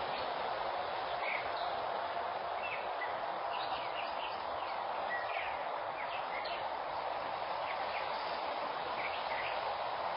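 Steady outdoor background hiss with scattered short, high bird chirps.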